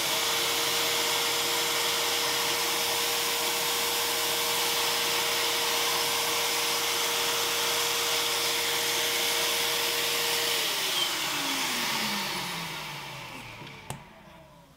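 Vacuum cleaner running steadily with a steady motor whine while a ballasting vacuum head is drawn along model railway track, sucking up loose ballast. About ten seconds in it is switched off and the whine falls in pitch as the motor winds down, with a single click near the end.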